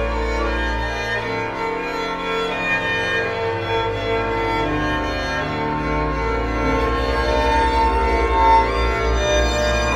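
Organ music: slow, sustained chords over a steady deep bass note.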